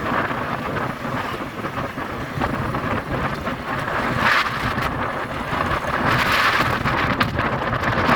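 Wind buffeting the microphone over a low rumble, as when riding a vehicle in the open air; the rush swells briefly about four seconds in and again around six seconds.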